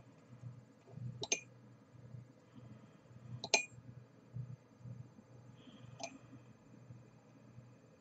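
Metal teaspoon clinking against the inside of a ceramic mug three times, each clink ringing briefly, while water is scooped out a spoonful at a time. A faint low hum runs underneath.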